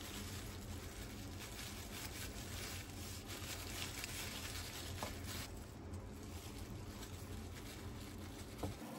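Soft rustling and crinkling of disposable plastic gloves as hands roll and press a kimbap roll and spread rice on a sheet of laver, over a steady low hum, with a light click near the end.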